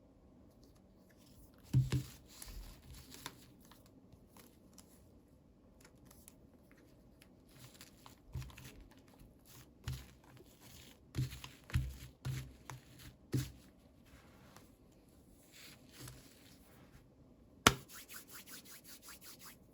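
Toy packaging being handled and opened: scattered faint rustling, tearing and small clicks of plastic and cardboard. Near the end comes a sharp click, followed by a quick run of small ticks.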